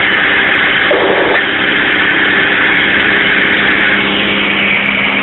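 Mack dump truck's diesel engine running steadily with a load of limestone, heard from inside the cab under a dense hiss of road and wind noise.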